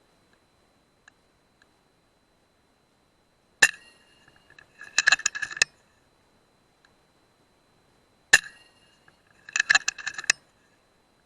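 An FX Dreamline .177 PCP air rifle fires twice, about five seconds apart. Each shot is a sharp crack with a brief metallic ring, followed about a second later by a quick run of metallic clicks and clinks.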